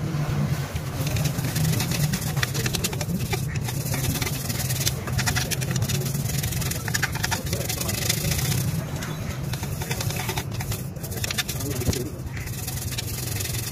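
A toothbrush scrubbing metal wax around the inside of a chrome exhaust tip: an irregular scratchy rubbing of bristles on metal, full of small clicks, over a steady low hum.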